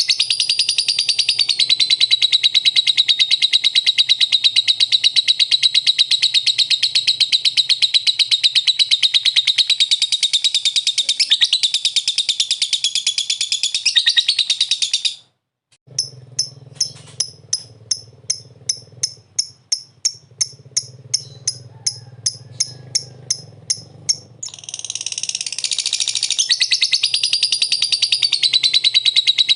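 Lovebird 'ngekek': a long, unbroken, rapid high-pitched chattering trill. About halfway it cuts off for a moment, gives way to a run of separate sharp chirps at about three a second, and the continuous chatter comes back near the end.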